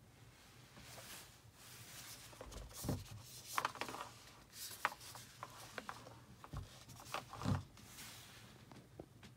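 A Google Home smart speaker being handled: irregular rubbing and scraping of hands on its casing with a few dull knocks, the loudest about three seconds in and again about seven and a half seconds in as it is set on the wooden desk.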